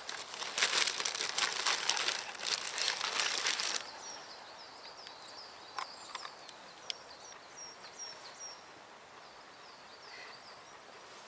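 Loud crinkling, rustling handling noise for about four seconds, then a small bird chirping over and over in short high notes, with an odd click now and then.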